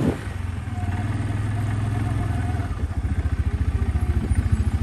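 ATV engine running at idle: a steady low hum that turns into a regular pulsing beat about halfway through.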